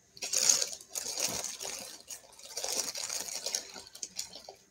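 Rustling and small clicks of a metal wristwatch being handled, in two stretches with a pause between.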